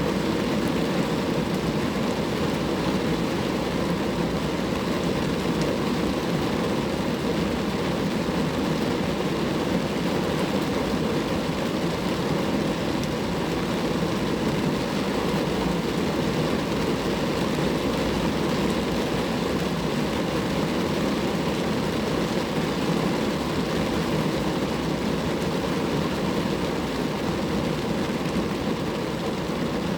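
Steady rain falling on a car, an even, unbroken patter with no separate drops or pauses standing out.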